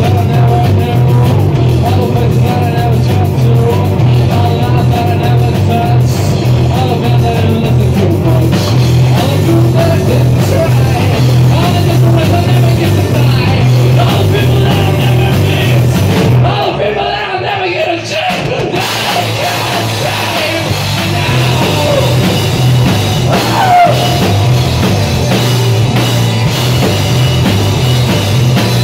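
Live rock band playing loudly: singing, electric guitar, bass and drum kit. About two-thirds of the way through, the drums and bass drop out for about two seconds, then the full band comes back in.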